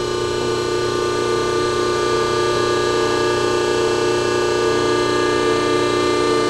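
Scotchman hydraulic ironworker with its hydraulic pump running at idle: a steady, unchanging hum made of several held tones.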